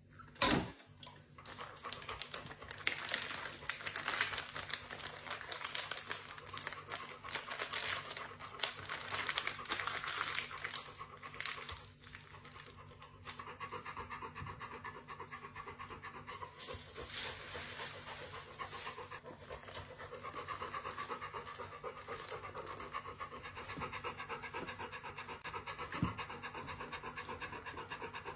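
A Chinese rural dog panting rapidly and steadily, with a brief lull about twelve seconds in.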